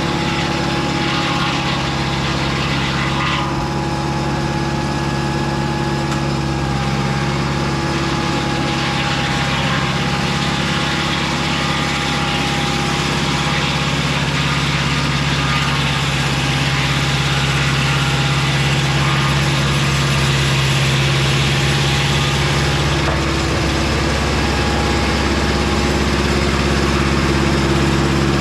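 Engine of a Mobile Dimension circular-blade sawmill running steadily, with a thin steady whine above it. The engine's note shifts slightly a few seconds in and again near the end.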